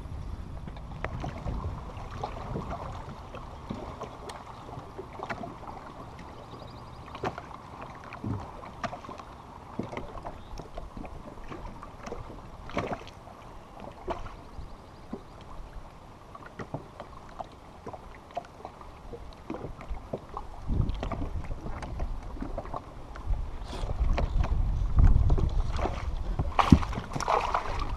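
Sounds aboard a bass boat: a steady wash of water against the hull, with scattered clicks and knocks on the deck. A louder low rumble builds in the last several seconds.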